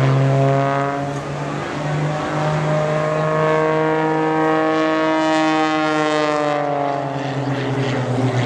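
Propeller-driven aerobatic monoplane's engine and propeller droning through a vertical dive and pull-out, the pitch rising over the first few seconds and falling again near the end, over a steady low hum.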